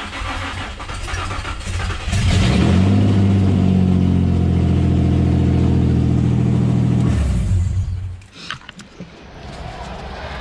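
Infiniti G35's 3.5-litre V6 cranking, catching about two seconds in and running steadily for about five seconds before it is switched off and winds down. It is the car's first start after the manual swap, the new body control module and the transplanted key chip now letting it fire. It is kept to a few seconds because there is no coolant in it yet.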